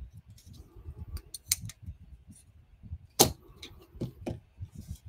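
Small clicks and taps of folding pocket knives being handled and set down on a desk, the loudest a sharp knock about three seconds in.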